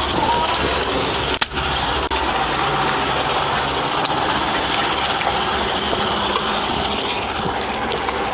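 A motor running steadily, with a brief dip in the sound about a second and a half in.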